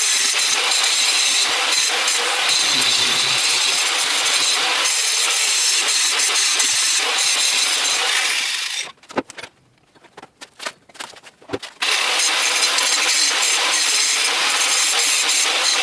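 Electric grinder grinding a steel railroad rail, a loud steady whine over harsh grinding noise. It stops about nine seconds in, leaving a few clicks and knocks for about three seconds, then grinding starts again.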